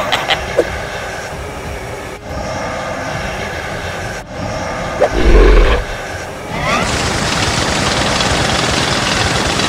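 Cartoon battle sound effects: a steady rushing noise that breaks off briefly twice, a deep boom about five seconds in, then a loud, even hiss of a laser beam firing through the last three seconds.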